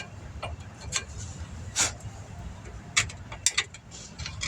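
Sharp metallic clicks and taps, about six at uneven intervals, as steel brake pad hardware clips are handled and pressed into a disc brake caliper bracket.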